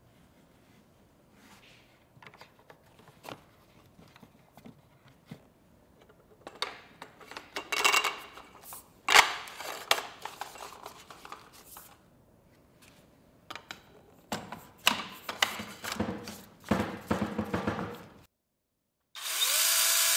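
Clicks, knocks and rubbing of plastic and metal parts as a DeWalt 20V cordless pole saw is handled and put together, coming in bursts. Near the end, after a brief silence, a loud steady rushing noise lasts about two seconds.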